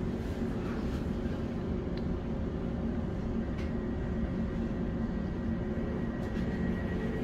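Steady interior hum and rumble of a class 710 electric multiple unit, with a faint steady high tone coming in about six seconds in.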